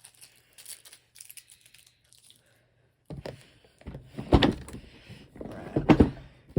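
Light crinkling and rustling of packaging, then, after a brief silence, a cardboard board-game box and its contents being handled, with two loud knocks about four and six seconds in.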